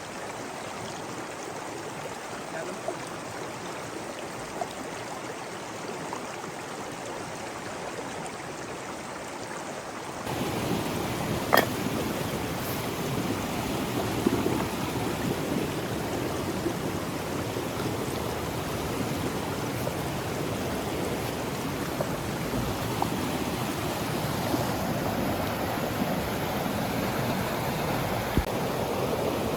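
Steady rush of running water, louder from about ten seconds in, with one sharp click shortly after and a few faint ticks.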